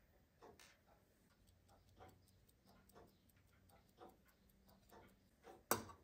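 Faint clockwork ticking, steady at about two ticks a second, with one sharp, louder click near the end.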